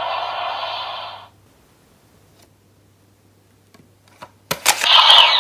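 DX Valvarusher toy's speaker finishing a sound effect that cuts off about a second in. Then a pause with a few light plastic clicks as a trading card goes into its slot, and near the end sharp clicks as the toy starts its next sound.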